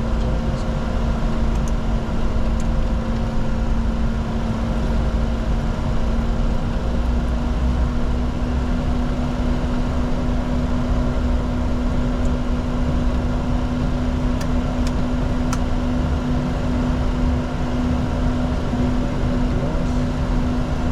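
Steady cockpit noise of a Bombardier Challenger 604 business jet in its initial climb: engine and airflow drone with a constant hum and a few faint clicks.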